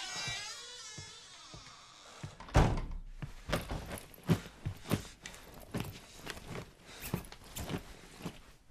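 A long creak that bends in pitch, then a heavy thunk, then a run of knocks and clatters about twice a second as objects are handled and set down in a wooden shed.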